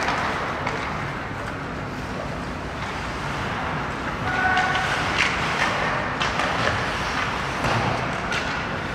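Ice hockey rink ambience during play: a steady hall rumble with skates scraping the ice and occasional clicks of sticks and puck. A short pitched tone sounds about four and a half seconds in.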